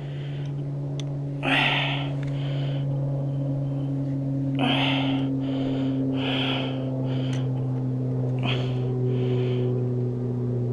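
A person breathing heavily in short, noisy breaths or sniffs every two to three seconds, over a steady low hum with a slowly falling tone.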